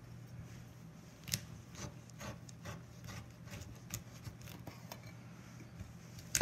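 Chef's knife cutting and scraping along the rib bones of a dry-aged bone-in ribeye roast: faint, irregular scrapes and light ticks of the blade, the sharpest about a second and a half in and right at the end, over a low steady hum.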